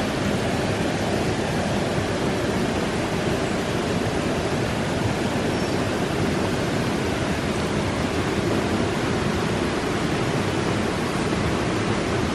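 Steady rushing of a river running close by, an even, unbroken water noise.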